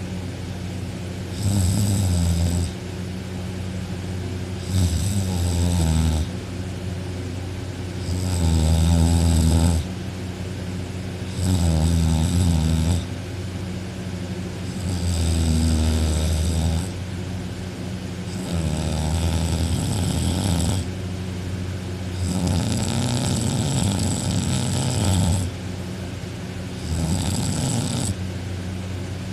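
A man snoring extremely loudly in deep sleep: eight long, rasping snores, one about every three and a half seconds, each lasting a second or two, over a steady low hum.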